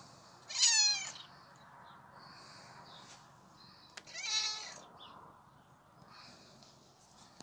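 Grey domestic cat meowing twice, about three and a half seconds apart; the first meow falls in pitch.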